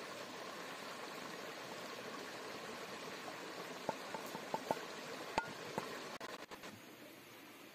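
Toasted cumin seeds poured from a nonstick pan into a stone mortar: a handful of light clicks and taps in the second half, over a steady rush of stream water.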